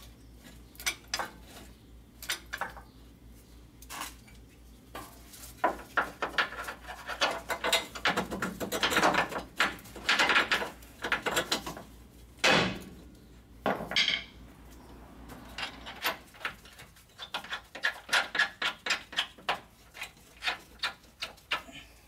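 Metal clinking and clicking of steel bolts, nuts and tools as the transmission crossmember and mount nuts are fitted and started by hand. There are two louder metal knocks about halfway through, and a quick run of clicks after that.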